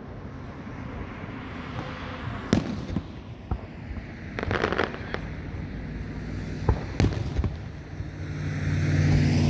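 Fireworks going off: a few sharp, separate bangs a second or more apart, with a brief crackle midway. A low steady hum grows louder near the end.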